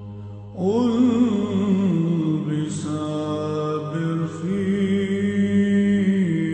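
Byzantine chant: a single voice singing a slow, ornamented melody over a steady low held drone (the ison). The melody swells back in about half a second in, after a brief softer stretch.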